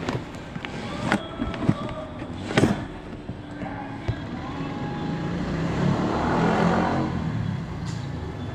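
A few sharp clicks and knocks in the first three seconds, then the rumble of a passing vehicle swelling and fading over about three seconds.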